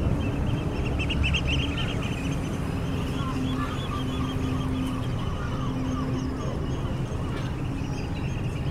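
Gulls crying repeatedly, several calls overlapping, most densely in the first couple of seconds. They ring out over a steady low rumble of wind and the ferry under way.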